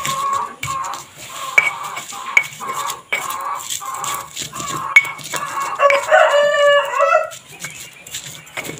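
Stone pestle grinding and knocking garlic, candlenut and pepper in a stone mortar (ulekan and cobek), with regular knocks about every second. About six seconds in, a rooster crows once, for a little over a second.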